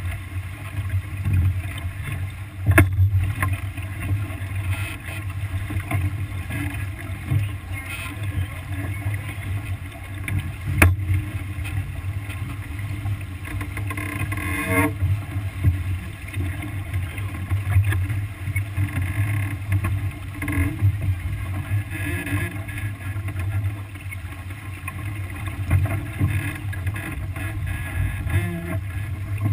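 Wind buffeting the microphone and water rushing along the hull of a sailboat under sail, a steady rushing noise. Two sharp knocks from the boat's gear come about 3 and 11 seconds in.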